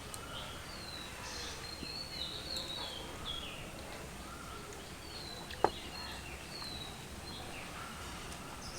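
Birds chirping repeatedly over faint outdoor background noise, with one sharp click about five and a half seconds in.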